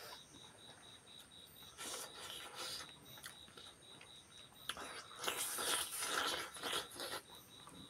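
Close-miked eating sounds of people eating with their hands: irregular chewing and wet mouth noises, with a louder stretch of chewing from about five to seven seconds in.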